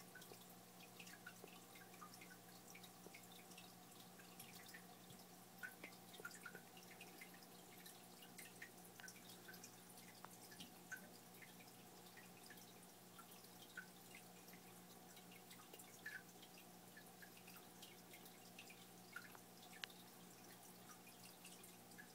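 Faint aquarium water sounds: small irregular drips and plops, several a second, over a steady low hum.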